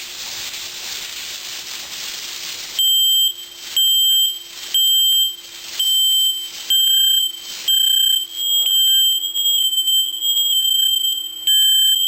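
Aerosol smoke-test spray hissing for about three seconds, then a hardwired FireX smoke alarm sounds loud, high-pitched beeps about once a second. From about eight seconds in, further alarm beeps overlap into a near-continuous sounding: the interconnected alarms going off together, showing the repaired interconnect wire now trips the others.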